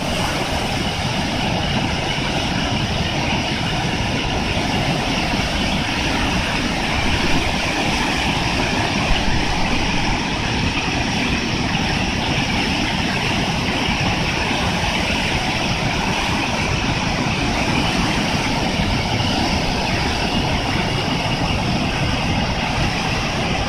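Typhoon storm noise: strong, steady wind buffeting the microphone, with a constant rushing hiss.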